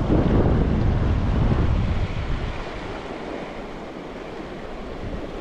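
Wind buffeting the microphone over a steady rush of river water; the buffeting is heavier for the first two seconds or so, then eases.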